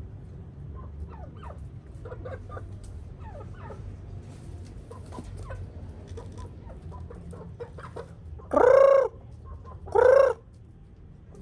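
Chickens clucking softly and repeatedly, with two loud, short calls that rise and fall in pitch, one about eight and a half seconds in and another a second and a half later.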